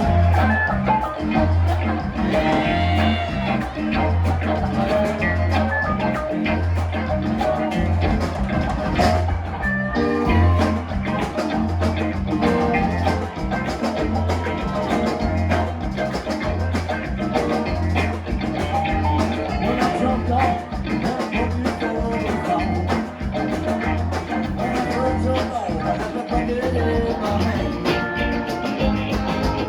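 Live rock band playing an upbeat instrumental passage, with a bass line pulsing steadily under drums, electric guitar and keyboards.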